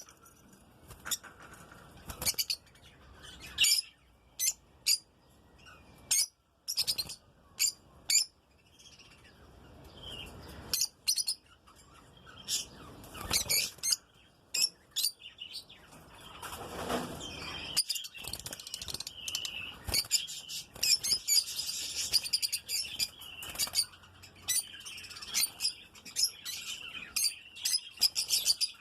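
Lovebirds chirping: short, sharp, high-pitched chirps, scattered at first and thickening into a near-continuous chatter over the second half, with a brief rustle a little past halfway.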